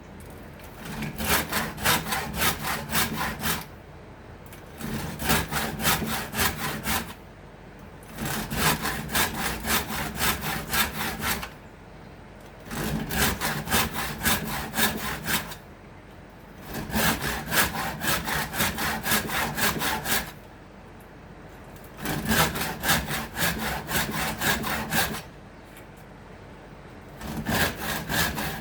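Saw cutting acacia wood in runs of quick back-and-forth strokes, each run two to three seconds long, with pauses of about a second between them.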